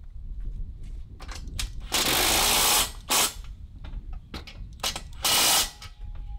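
Handheld cordless power tool run in three short bursts, about two seconds in, just after three seconds and near the end, against the steel hardware holding an aluminum sill to the dump-kit frame. Light clicks and knocks of handling come between the bursts.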